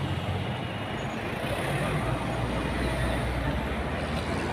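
Cars passing close on a tarmac road, SUVs and a minibus in a convoy: steady engine and tyre noise, with a low rumble that grows stronger in the middle.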